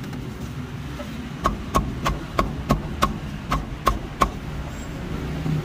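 Meat cleaver chopping through a roast duck onto a round wooden chopping block: a quick run of about nine chops, roughly three a second, each a sharp knock with a short ring.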